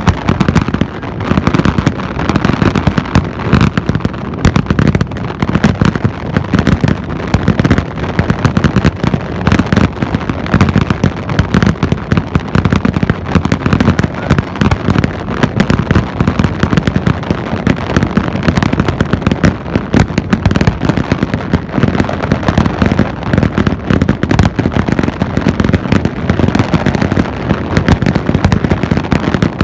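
Aerial fireworks display: a dense barrage of shell bursts, many loud bangs following one another in quick succession with no break.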